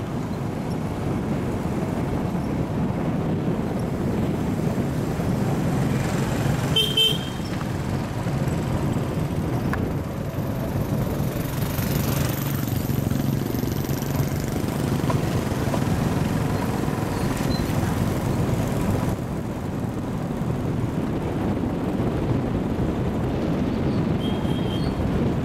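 Motorbike engine and road noise running steadily while riding, with a short horn beep about seven seconds in and a fainter one near the end.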